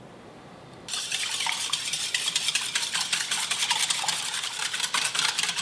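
Wire whisk beating a thin liquid mixture of milk, egg yolks, vanilla and oil in a stainless steel bowl, the wires rapidly scraping and clinking against the metal. The whisking starts about a second in.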